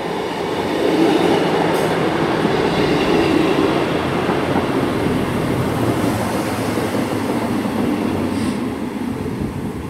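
Class 158 diesel multiple unit running into the station platform: a steady rumble of engine and wheels that swells about a second in and eases near the end.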